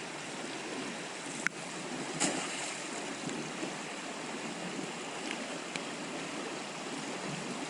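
Fast, rain-swollen creek rushing steadily over its bed. A sharp click about a second and a half in and a short burst of noise just after two seconds break the steady rush.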